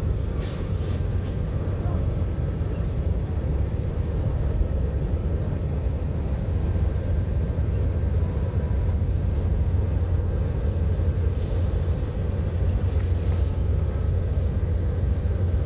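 Freight train crossing a steel deck bridge: the Norfolk Southern diesel locomotives and cars make a steady low rumble.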